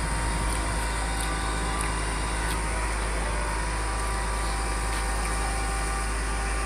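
Steady running of idling emergency-vehicle engines: a constant low rumble with a steady hum over it, and a few faint sharp ticks.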